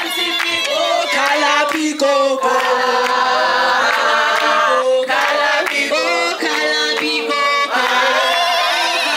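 A group of people singing together, several voices at once, holding and bending long notes.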